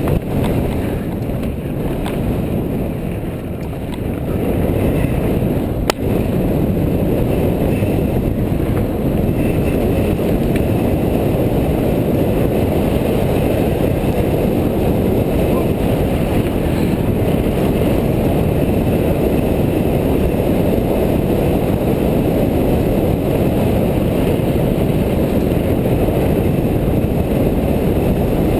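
Wind rushing over the microphone and tyres rumbling on loose gravel during a mountain-bike descent of a dirt fire road. There is a steady, loud noise with a brief lull about three seconds in and a single sharp knock about six seconds in.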